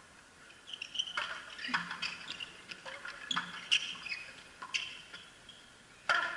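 A frontenis rally: half a dozen sharp cracks of the rubber ball off the rackets and the frontón wall, the loudest near the end, with short high squeaks from the players' shoes on the court.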